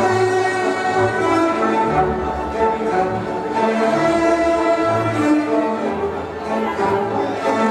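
Waltz music for the wedding dance, with bowed strings carrying the melody over a bass note that comes about once a second.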